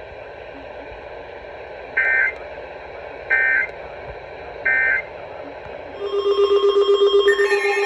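Three short screeching bursts of EAS data tones, about a second and a half apart, over radio hiss: the end-of-message code that closes the warning broadcast. About six seconds in, a loud buzzing alert tone with a fast flutter starts, joined by higher tones near the end.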